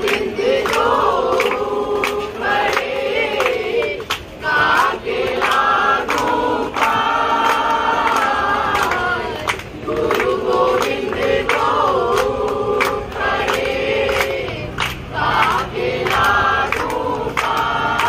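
A mixed group of men and women singing together in unison, line by line with short breaks, clapping along.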